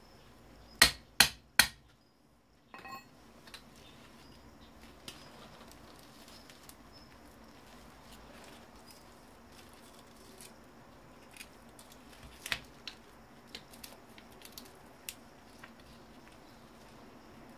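Three sharp knocks about 0.4 s apart, then scattered light clicks and taps, one louder about two-thirds of the way through: hand work on the parts of an old CRT computer monitor being dismantled for scrap.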